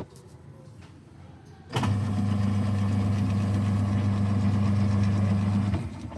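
Electric motor in an LG washing machine humming steadily for about four seconds, starting about two seconds in and cutting off abruptly near the end. It is part of a machine whose tub won't spin while the pulsator still turns, a fault put down to a defective drain motor.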